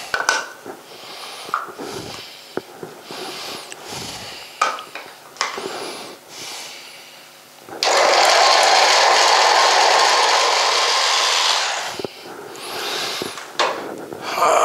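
Small electric food chopper running for about four seconds as it purees peeled orange pieces, starting about eight seconds in and winding down. Before it come scattered clicks and knocks of the pieces and the lid going into the plastic bowl.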